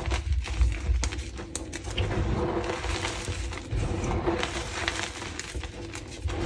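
Hands crushing and squeezing a pile of crumbly pigment-dusted gym chalk: a dense, irregular crunching and crackling of chunks breaking apart, over dull low thuds as the hands press into the powder.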